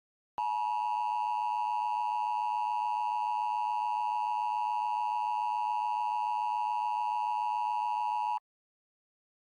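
Emergency Alert System two-tone attention signal: a loud, steady electronic tone that comes in just after the start, holds unchanged for about eight seconds and cuts off sharply.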